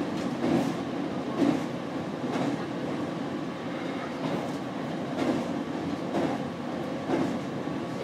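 Electric train running along the track, heard from inside the front of the car: a steady rumble, with a knock from the wheels on the rails about once a second.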